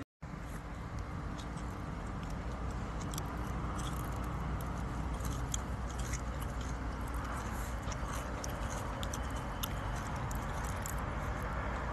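Steady low outdoor rumble, like distant traffic, with scattered light clicks and ticks throughout.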